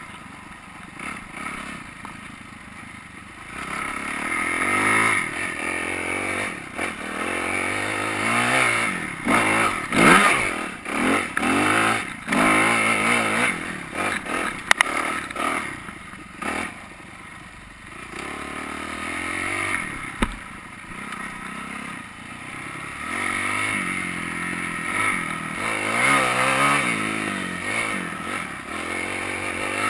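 Kawasaki KX250F four-stroke single-cylinder dirt bike engine being ridden hard, revving up and down over and over as the throttle is worked through the turns, loudest and most rapid in the middle and easing briefly after that. Clatter and knocks from the bike's chassis and suspension over the rough ground.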